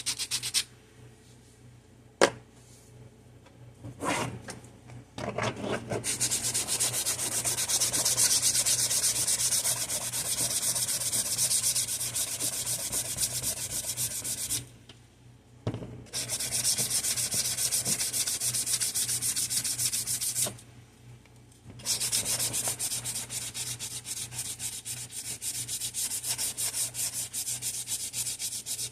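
Sandpaper rubbing back and forth on the bottom of a tic-tac-toe piece. It starts with a few short scrapes and a sharp tap about two seconds in, then runs in three long spells of steady sanding broken by two short pauses.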